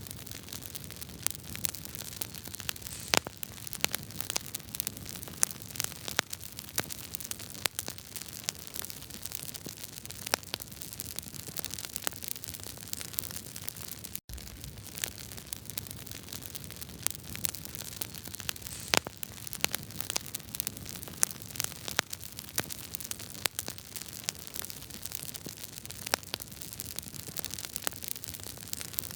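Wood fire crackling in a fireplace: many sharp pops and snaps from the burning logs over a steady hiss. The sound cuts out for an instant about halfway through.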